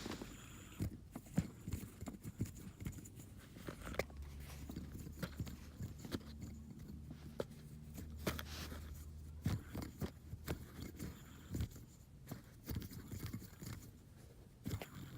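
A metal fidget spinner being handled: scattered small clicks and taps. From about four seconds in to about nine and a half seconds, a low steady hum runs under them while it spins.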